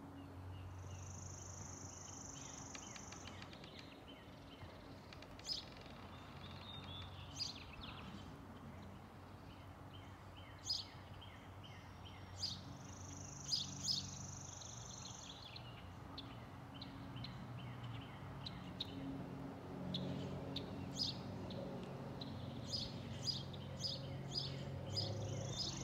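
Airbus A321-231 jet airliner with IAE V2500 turbofans passing high overhead, heard as a distant steady low rumble that grows a little louder near the end. Birds chirp sharply throughout, with a high thin trill a few times.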